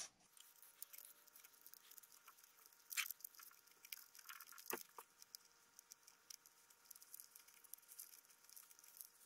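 Near silence with faint rustling and a few light clicks, as a sensor wire lead is fished through a model airplane's fuselage by hand.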